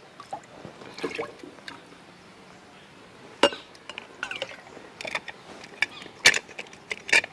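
Water poured into a pressure cooker of washed rice, with sharp metallic clinks and knocks as the cooker is handled, several in quick succession near the end.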